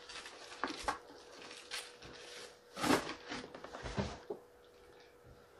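Hands rummaging through a plastic bag and cardboard box: scattered short rustles and scrapes, with a soft knock about four seconds in.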